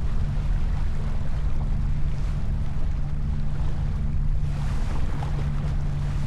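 J24 sailboat under way: steady wind rumble on the microphone over water washing past the hull, with a louder wash about four and a half seconds in.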